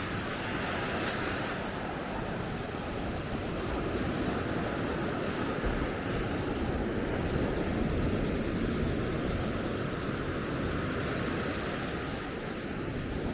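Sea surf washing steadily onto a sandy beach, with a brighter wash of hiss about a second in, and some wind on the microphone.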